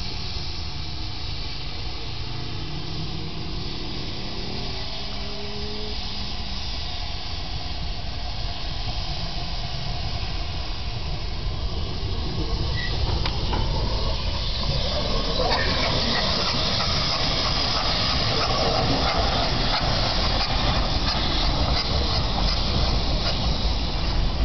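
Metre-gauge steam locomotive approaching with its train, its steam hissing and running noise growing louder from about halfway through.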